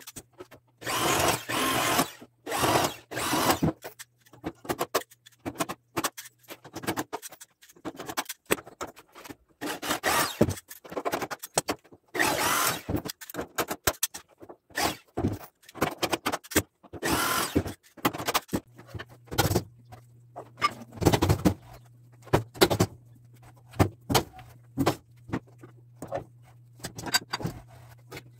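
Hand-tool work on a steel gate frame: short, irregular scraping and clattering noises, with a low steady hum coming in about two-thirds of the way through.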